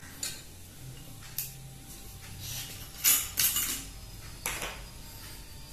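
Glass bottles and a glass being handled on a table: a few sharp clinks and knocks, the loudest pair about three seconds in.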